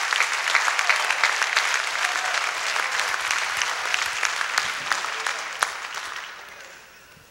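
Congregation applauding, many people clapping at once, the applause dying away over the last two seconds.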